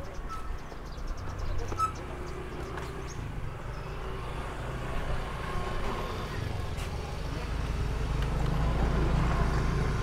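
Small motorbike engine running, getting louder toward the end as it draws near.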